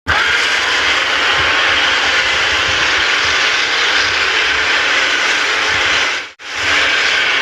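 A loud, steady rushing noise with no clear pitch, used as a creature sound effect. It cuts out briefly about six seconds in and then starts again.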